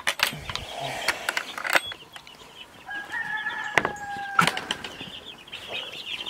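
A flock of baby chicks and ducklings peeping together, with sharp wooden knocks and a metal latch hook being worked as the wooden door of their pen is opened. A drawn-out squeak runs for over a second about three seconds in.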